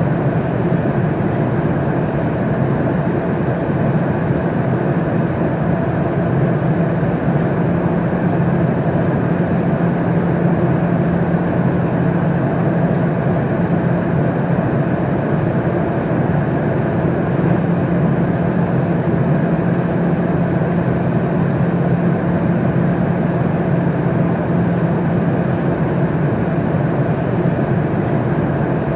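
Airliner cabin noise in flight: a steady, even rushing drone of engines and airflow, deepest and strongest in the low range, with a constant low hum underneath and no changes.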